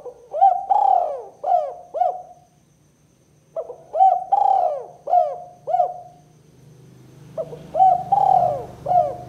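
Spotted dove cooing: three repeated phrases, each a run of about five cooing notes lasting around two and a half seconds, with short pauses between phrases.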